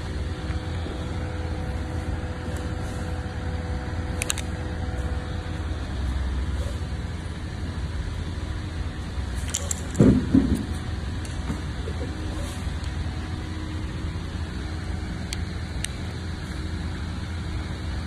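Steady low background hum, with a few light clicks and one short, louder knock about ten seconds in.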